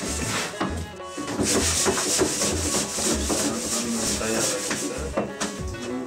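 Background music with a steady low beat, a shaker-like rasping rhythm and a wavering melody.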